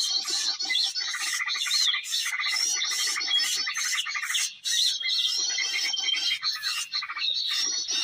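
Dense, continuous chattering and chirping of many small songbirds, calls overlapping with short rising and falling whistles and a few held whistles, typical of the loud small-bird lure call played to draw birds onto lime sticks.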